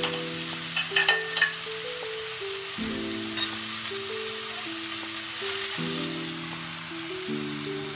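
Shredded potatoes sizzling as they are stir-fried in a hot wok, with a few short clinks about a second in and again a little past three seconds. Soft background music with slow held notes plays underneath.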